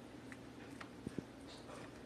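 Small dog eating wet dog food from a bowl: faint licking and chewing with a few soft clicks, two of them close together about a second in.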